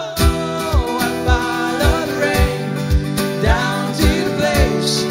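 Live acoustic band music: two acoustic guitars strummed with male voices singing, over a steady low beat about twice a second.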